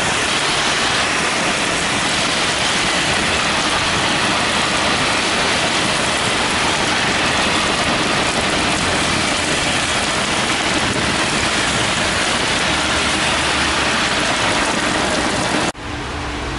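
Heavy rain pouring onto a street in a dense, steady hiss, with car tyres swishing through standing water. Near the end it cuts suddenly to lighter rain over a low traffic rumble.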